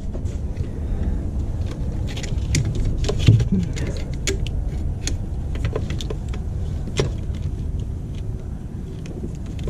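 Light clicks and clinks of small parts and tools being handled, scattered over a steady low rumble, with one sharper click about three seconds in and another about seven seconds in.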